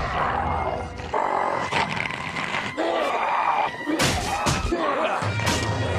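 Cartoon Sharptooth (T. rex-like dinosaur) sound effects: several short growls and roars, one after another, over a steady low background.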